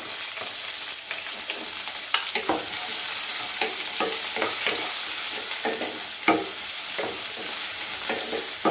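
Chopped onion frying in hot oil in a nonstick pan: a steady sizzle. A wooden spatula stirs it in quick scraping strokes, about two a second.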